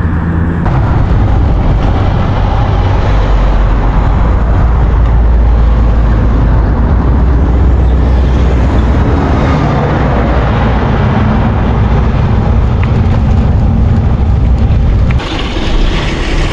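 Wind buffeting the microphone: a loud, steady low rumble with no clear pitch, changing abruptly about fifteen seconds in.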